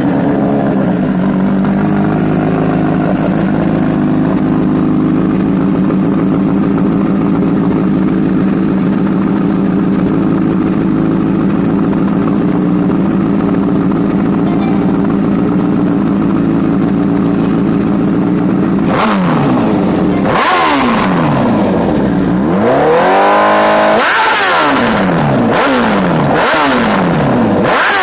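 Honda CBR1000RR Fireblade's inline-four engine running loud through an aftermarket sport exhaust with the removable baffle taken out. It catches at once and idles steadily. From about two-thirds of the way through it is revved in a series of throttle blips, one held longer, then several quick short ones.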